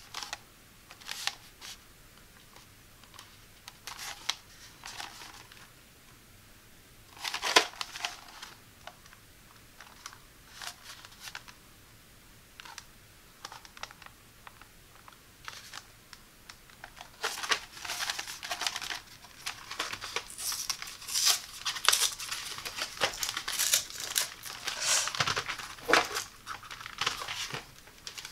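Plastic blister pack with a cardboard backing, holding Zebra Z-Grip ballpoint pens, handled and turned over, giving scattered crinkles and taps. From a little past halfway it crinkles and tears steadily as the card is worked loose from the plastic blister.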